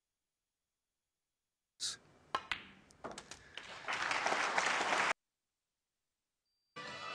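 Snooker balls clicking as a shot is played, followed by audience applause that cuts off suddenly. Music starts near the end.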